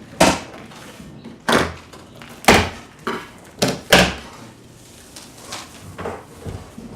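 A large cardboard shipping carton for a recliner being handled and opened: a run of sharp thumps and knocks, five loud ones in the first four seconds and softer ones after.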